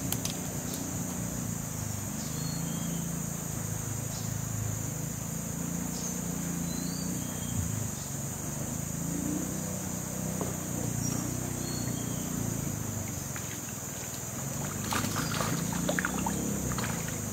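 Low, steady hum of a boat engine running, under a constant high drone of insects. About fifteen seconds in, water splashes and ripples beside the boat.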